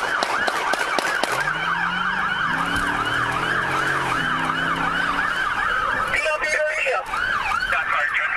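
Police car siren on a fast yelp, sweeping up and down a few times a second without a break, heard from inside the patrol car's cabin.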